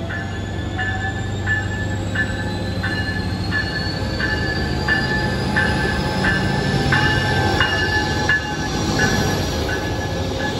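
A Siemens Charger diesel locomotive leading a Pacific Surfliner train pulls into the station, its bell ringing steadily about once every 0.7 s over the engine's low rumble. A faint high whine slowly rises in pitch as the train comes alongside.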